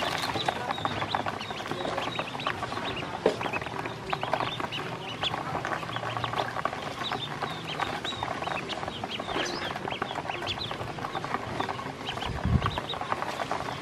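A brood of black and yellow ducklings peeping continuously, many short high calls overlapping, as they eat feed from a plastic basin. A brief low thump sounds near the end.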